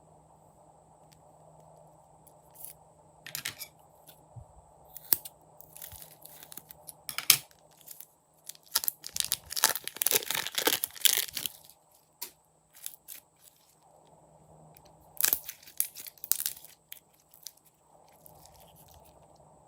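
Clear slime being stretched, pressed and folded by hand, giving crackling, popping clicks in irregular bursts, densest about halfway through and again a few seconds before the end.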